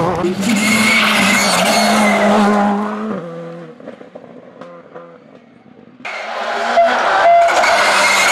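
Skoda Fabia R5 rally car's turbocharged four-cylinder engine running hard on a tarmac stage. It fades away about three seconds in, then comes back in loudly and suddenly about six seconds in as the car drives at speed again.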